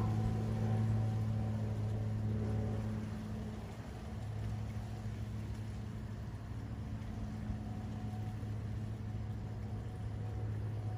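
A steady low mechanical hum, like a motor or engine running, with a slight dip about four seconds in.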